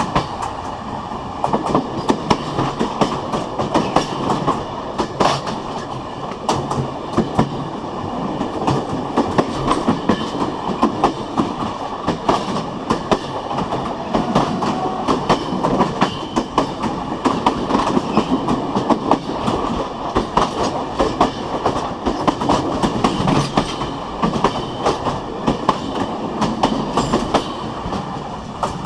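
Passenger coach bogie wheels running on jointed rail track at about 100 km/h: a steady rumble of steel wheels on rails, broken by frequent sharp clicks, often in quick groups, as the wheelsets cross the rail joints.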